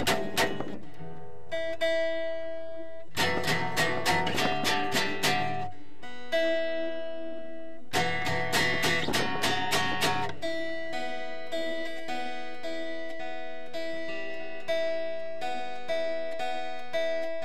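Acoustic guitar played solo: three stretches of quick strummed chords, each a couple of seconds long, alternate with ringing single picked notes. From about ten seconds in, only picked notes, about two a second.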